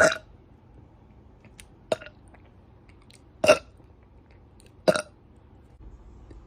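A woman burping four times in short bursts, about a second and a half apart.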